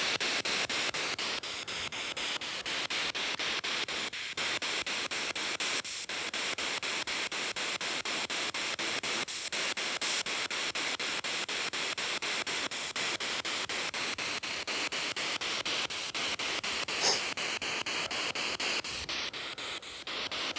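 P-SB7 spirit box sweeping through radio stations: a steady hiss of static, chopped by fast, regular clicks as it jumps from station to station. A brief louder blip comes near the end.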